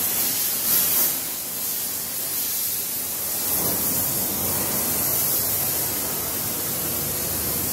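Lit oxy-fuel torch flame hissing steadily, with a brief louder surge about a second in.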